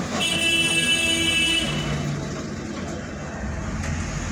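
A vehicle horn sounds once, a steady note of about a second and a half, shortly after the start, over a constant low rumble of traffic.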